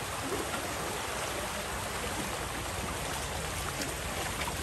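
Fast-flowing stream water rushing steadily.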